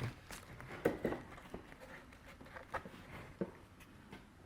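A few scattered, irregular clicks of keys on a mechanical keyboard with Gateron Pro G 2.0 brown switches.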